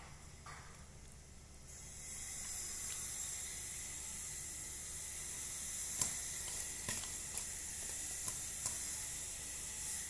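Tap water running steadily into a metal basin, starting about two seconds in, with a few wet squishes and light knocks as hands rinse raw squid in it.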